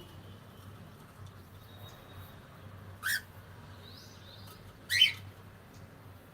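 Cockatiel calling: two short, sharp calls about two seconds apart, the second louder, with faint high whistles in between.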